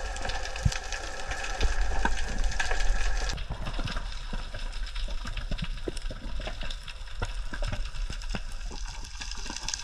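Underwater ambience through a camera housing: a steady low rumble of water with scattered crackling clicks and a faint steady hum. The mix changes abruptly about three seconds in.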